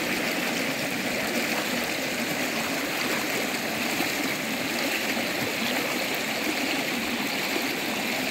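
River water flowing over rocks in a shallow pool, a steady rush of running water.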